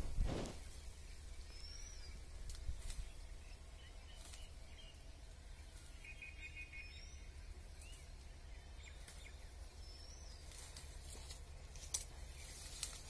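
Branches and Passiflora foetida vines rustling and snapping as they are gripped and pulled while climbing, with a knock right at the start and a sharp crack about a second before the end. A bird gives short chirps every few seconds over a low steady rumble.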